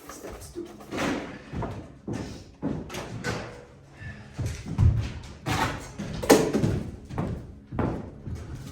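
A series of irregular knocks and thuds, about a dozen, from stapling and fitting insulation baffles between the rafters; the heaviest thuds fall about five and six seconds in.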